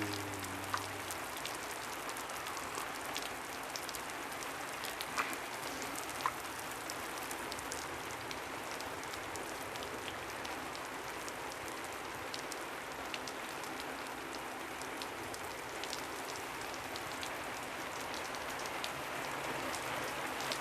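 Steady rain falling: an even hiss with scattered sharper drip ticks.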